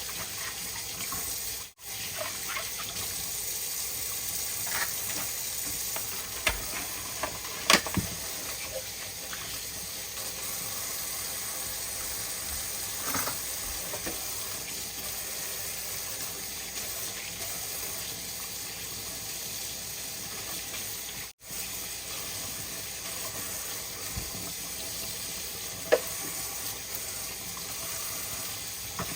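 Kitchen sink tap running steadily while fresh produce is rinsed, with a few sharp knocks from items handled in the sink.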